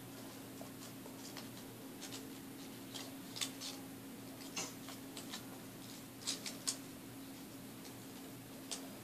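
Faint, irregular clicks and taps of small objects being handled, over a steady low hum; the sharpest clicks come in a cluster a little past the middle.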